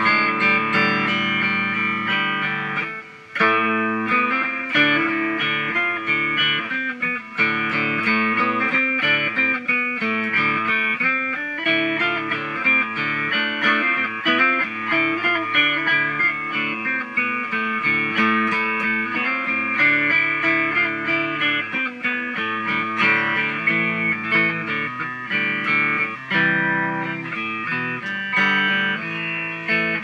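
Electric guitar playing an instrumental melody, with a brief break about three seconds in.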